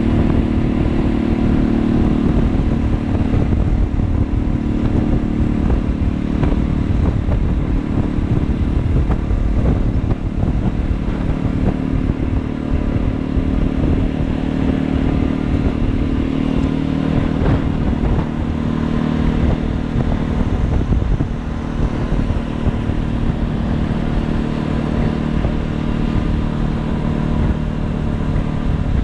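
Motorcycle engine running steadily at cruising speed, its note holding at about the same pitch throughout.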